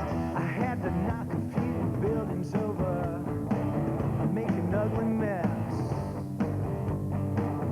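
Rock music with a singing voice over it.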